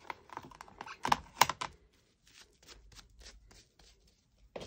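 Clear acrylic stamp being wiped clean by hand on a clear craft mat: a run of light clicks and taps, then softer rubbing strokes.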